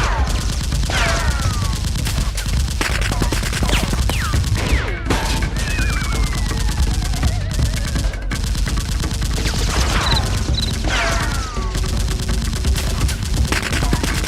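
Rapid gunfire sound effects in long, dense bursts, with several short falling whistles and one longer falling whistle layered over them.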